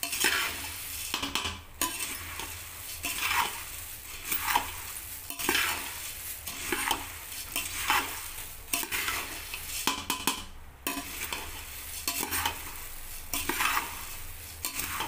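Puffed rice being stirred with a metal spoon in a metal pot, rustling and scraping against the metal in strokes about once a second as it is coated in the spiced oil tempering.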